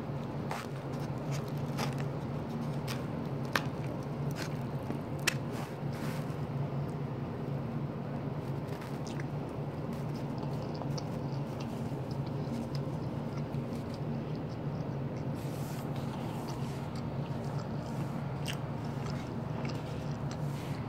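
Someone chewing and biting crunchy fried food close to the microphone, with scattered small clicks and two sharper clicks in the first few seconds. A steady low hum runs underneath.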